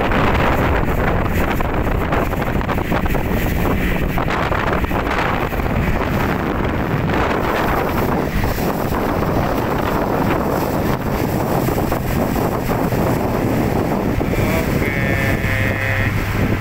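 Freshly overhauled outboard motor driving an inflatable rescue boat under way, with heavy wind buffeting on the microphone and water rushing along the hull. Near the end a steadier low engine note comes through.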